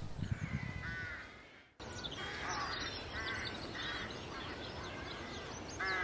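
Birds calling: a series of short, repeated calls roughly every half second to second, with smaller birds chirping in high notes over them. The sound drops out briefly a little under two seconds in.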